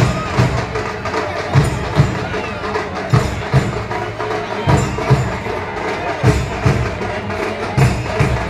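Procession drums beaten in a steady pattern of paired low thumps, a pair about every second and a half, over the chatter of a large crowd.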